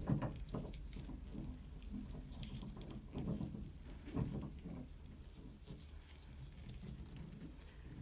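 Faint, irregular scraping and light knocks of a steel valve seat wrench and a lever bar, worked by gloved hands, as a brass valve seat is threaded into a shower valve body. A few knocks stand out, one right at the start and two around three and four seconds in, over a steady low hum.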